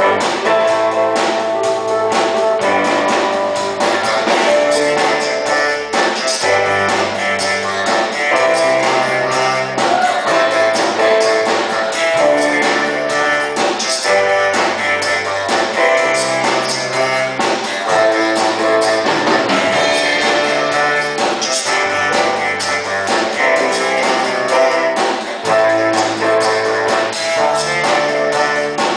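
Band music led by guitar, with a bass line stepping between notes every second or two.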